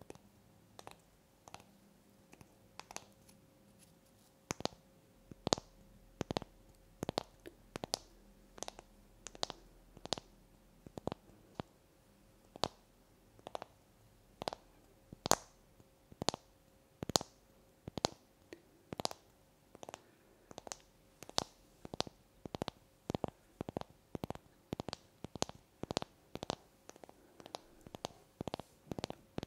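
Long fingernails tapping on a small unfinished wooden block, a string of separate sharp taps, sparse for the first few seconds and then about two a second.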